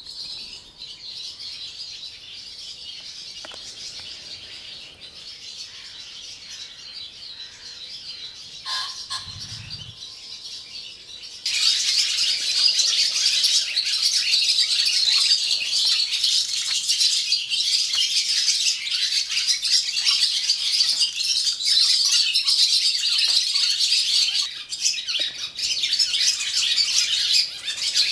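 Barn swallows singing and twittering, many birds at once in a dense chorus. A short low thump comes just before the middle, and a little later the chorus suddenly becomes much louder and stays so.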